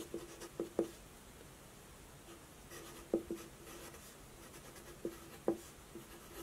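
Felt-tip marker writing: short scratchy strokes, many with a brief squeak, coming in a few clusters with pauses between.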